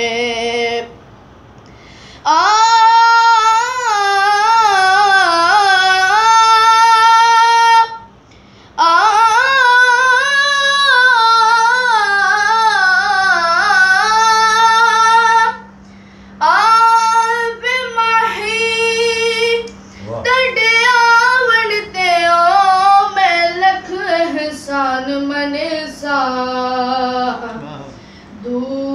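A boy's unaccompanied voice singing a Punjabi naat, a devotional poem praising the Prophet. He draws out long held notes without words, bending and wavering them in ornaments, across four long phrases with short breaks for breath between them.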